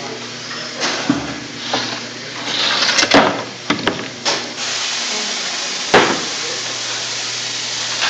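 Woodshop noise: irregular knocks and clatters of wood being handled and set down, loudest about three seconds in, then a steady machine hiss from shop machinery coming back about halfway through, with one sharp knock about six seconds in.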